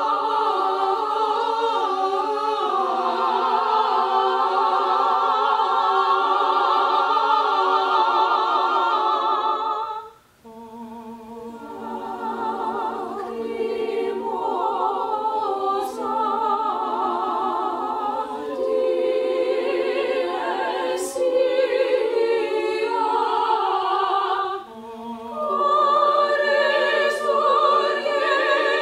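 A cappella choir of sopranos and mezzo-sopranos singing sustained chords in several parts. The voices break off briefly about ten seconds in, re-enter and build, then take a short breath near the end before coming back in.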